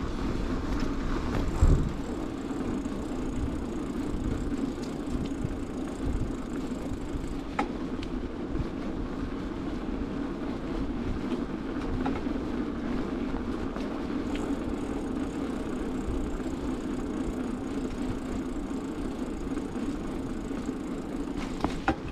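Bicycle rolling over pavement at riding speed: a steady noise of tyres and rattling frame, with wind rumbling on the microphone. A few sharp knocks from bumps, one near the start and one near the end.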